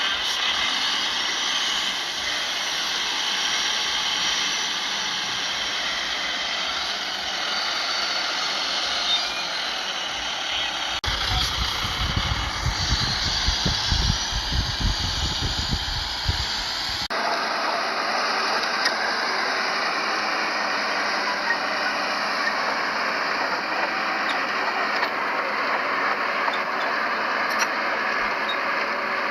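Heavy earthmoving machinery running: diesel engines of a bulldozer and dump trucks working sand. The sound changes abruptly about eleven seconds in, to a stretch with heavy, uneven low rumble, then changes back about six seconds later.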